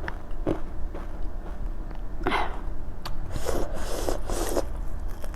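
Close-up chewing and biting of panipuri, crisp puri shells filled with potato and mint water, with small wet mouth clicks and a few louder crunching bursts about halfway through.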